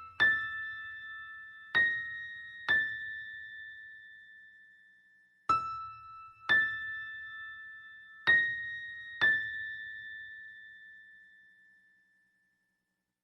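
A slow, eerie melody of seven struck, bell-like keyboard notes, each ringing on and fading out, alternating between a couple of high pitches, used as a horror sound effect.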